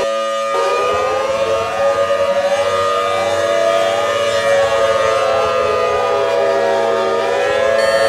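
Emergency-alert siren alarm: several steady siren tones layered with short rising whoops that repeat about three times every two seconds.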